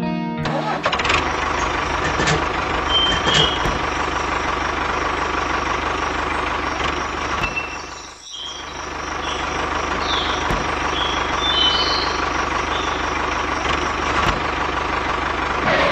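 Tractor running noise, a steady mechanical drone with a few short high chirps over it, dipping briefly about halfway through.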